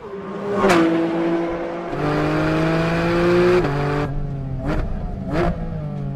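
Porsche 718 Cayman GT4 RS's naturally aspirated 4.0-litre flat-six revving hard under acceleration, its pitch climbing and then dropping with an upshift about three and a half seconds in before climbing again.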